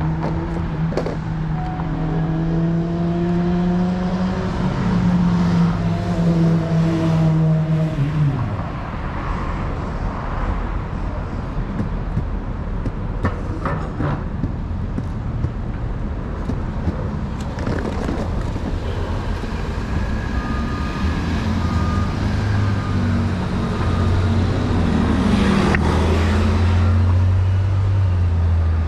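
City traffic: motor vehicles running and passing, with a steady low engine hum from a heavier vehicle for the first several seconds and another one building near the end.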